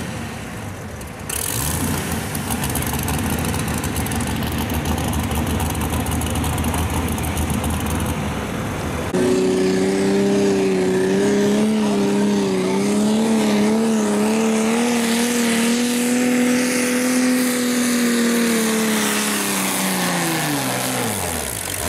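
Naturally aspirated super stock pulling tractor engines at full throttle under load: first a green tractor's engine, then after a sudden change a Farmall's engine with a strong, slightly wavering pitch. Near the end the Farmall's pitch drops steadily as the engine winds down.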